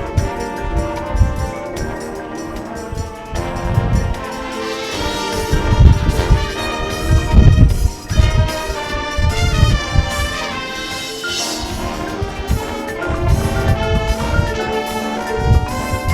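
High school marching band playing, with brass sustaining full chords over repeated bass drum hits. The music swells to its loudest around six to eight seconds in.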